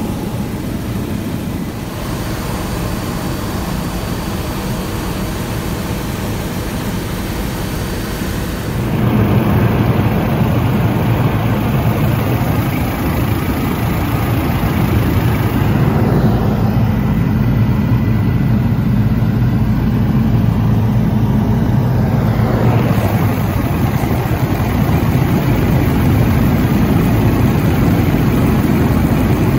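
Helicopter in flight: a steady drone of turbine and rotor that gets louder about nine seconds in.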